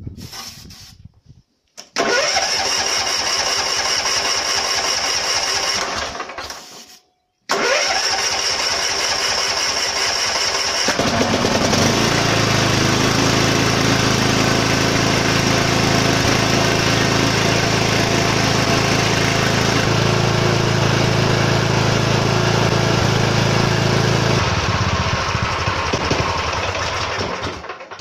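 Riding-mower engine, primed with starting fluid, being turned over by its electric starter: a crank of about four seconds, a short pause, then a second crank on which the engine catches about eleven seconds in. It runs steadily for roughly thirteen seconds, then dies away near the end. The starter now turns because the faulty solenoid has been replaced with a new one.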